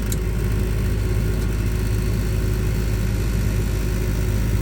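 Trane gas furnace's draft inducer fan running with a steady hum, and a light click just after the start as the gas valve opens; the burners do not light, a failed-ignition fault.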